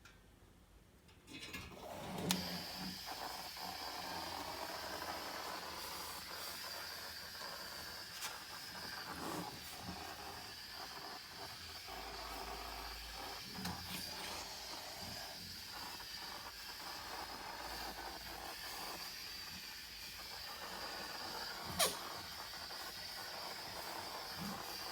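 Compressed air hissing steadily through a Redline EZ50 powder coating gun as it sprays powder. It starts about a second and a half in, with a few sharp clicks along the way.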